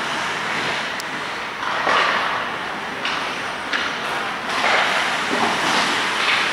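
Ice hockey game sound in a large, echoing rink: a steady wash of skates scraping the ice and crowd noise, swelling about two seconds in and again past the middle, with a sharp tap about a second in.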